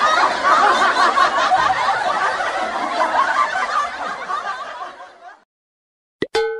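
Many people laughing together, fading out over the last second or so and cutting to silence. Near the end, a click and then a short ringing chime.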